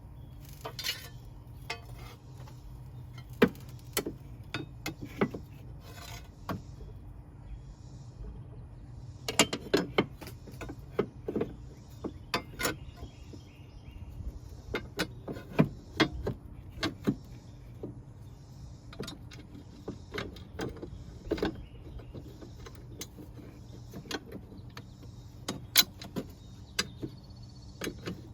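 Irregular metallic clicks, clinks and knocks of hand tools and mower parts being handled, over a faint steady low hum.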